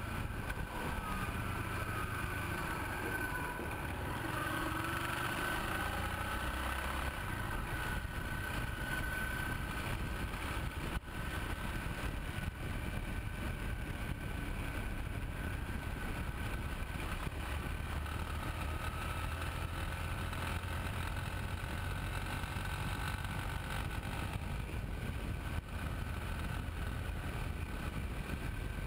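Yamaha Ténéré 250 motorcycle riding on asphalt, picked up close to the front wheel: a steady rush of wind and tyre noise over the single-cylinder engine. The engine note rises and falls in the first few seconds.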